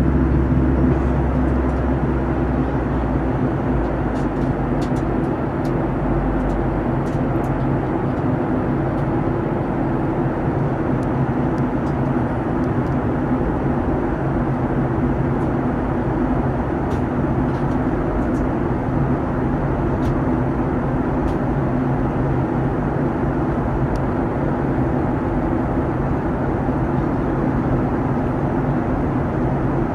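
Steady cabin drone of a Boeing 737-900ER in flight: the hum of its CFM56-7B turbofans over the rush of airflow. A deep low rumble drops away in two steps within the first several seconds.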